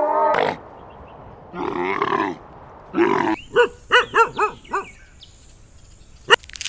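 Animal calls: two separate calls, then a quick run of about six short pitched calls that each rise and fall. A sharp click comes near the end.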